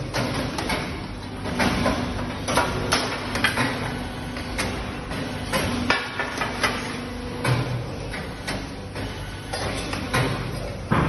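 Irregular metal clanks and knocks over a steady low hum from a copper billet casting machine.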